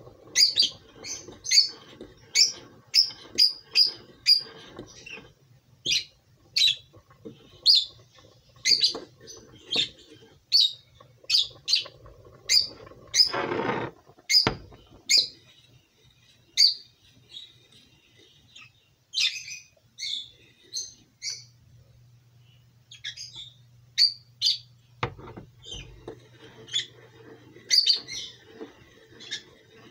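A small bird chirping over and over, short high chirps about two a second with a few pauses. About 13 seconds in, a metal spoon scrapes around inside a stainless steel saucepan as the rice and vermicelli are stirred.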